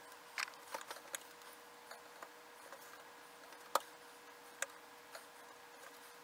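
Small hand carving tool nicking and scraping a wooden tongue-depressor piece against a wooden tabletop: scattered small clicks, several in the first second and the sharpest one about midway. A faint steady hum runs underneath.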